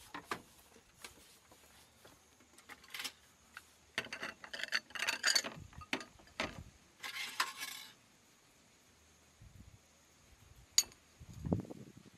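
Glass saucers clinking and being set down on a bamboo slat table, with a brief scrape about seven seconds in and a single sharp click near eleven seconds.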